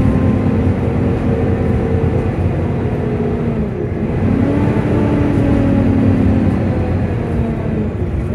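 Volvo B9TL double-decker bus heard on board, its engine and loud cooling fan running with a whine. The pitch dips about three and a half seconds in, rises again a moment later, then slowly falls.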